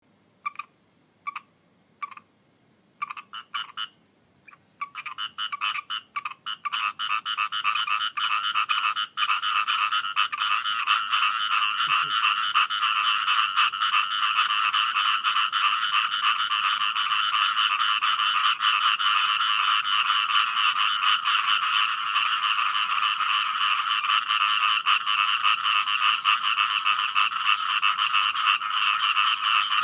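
Frogs croaking: a few separate calls at first, building within about six seconds into a dense, continuous chorus of many frogs calling together.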